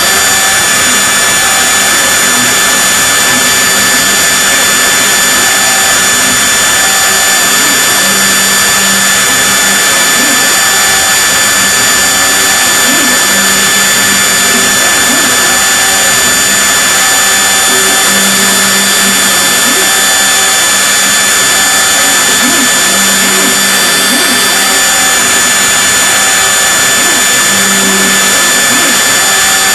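High-speed spindle of an LnV-CnC R250-3 CNC mill running steadily as its tapered cutter mills a wax ring model: a constant high whine, with lower tones coming and going every few seconds.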